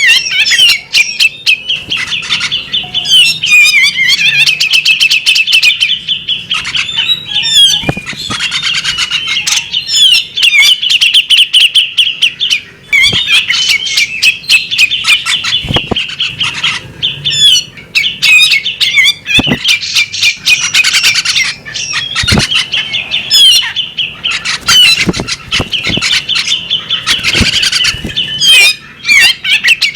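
Female magpie-robin calling almost without pause: fast, buzzy chattering strings of notes broken by short gaps, with a few sharp clicks in between.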